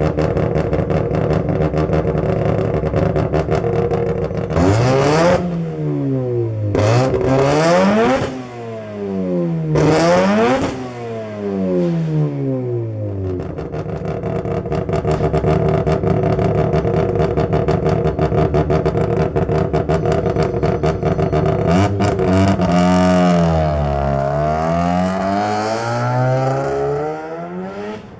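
Mazda RX-7 FD's two-rotor turbo rotary engine at idle, revved three times in quick succession and then once more, longer, near the end, dropping back to idle after each rev.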